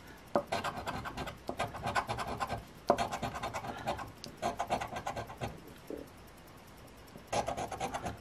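A coin scraping the scratch-off coating from a paper lottery ticket in quick back-and-forth strokes. The strokes come in bursts of a second or two with short pauses between, and a longer pause of over a second near the end.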